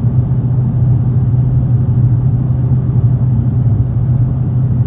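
Dodge Challenger Hellcat's supercharged V8 and road noise at a steady cruise, heard as a constant low drone from inside the car. The driver's-side exhaust has just been reconnected after it separated.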